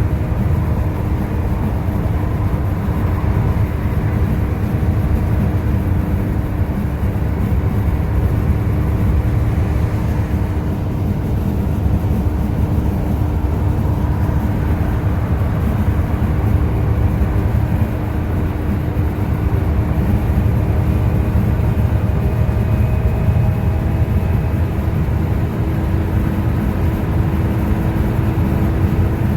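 Volvo B7TL double-decker bus running under way: a loud, steady low engine and road rumble with a constant whining tone over it. The title calls it a strange loud noise.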